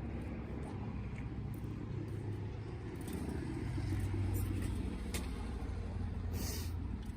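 Wood campfire crackling, with scattered sharp pops over a steady low rumble that swells a little midway.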